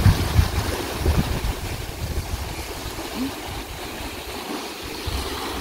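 Wind buffeting the microphone over small waves washing on a sandy shore. The gusting is strongest in the first second or so, then eases.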